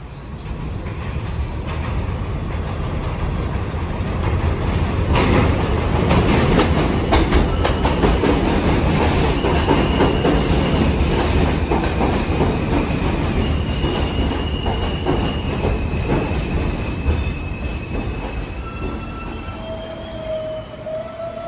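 New York City subway train pulling into the station: rumble and clatter build over the first few seconds to a loud peak, then high-pitched wheel squeals come in about halfway through and carry on as the noise eases with the train slowing.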